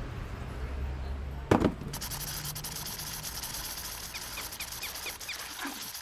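Cartoon sound effects: a low drone broken by a sudden loud hit about a second and a half in, then a steady hiss with a quick run of short, high squeaks near the middle.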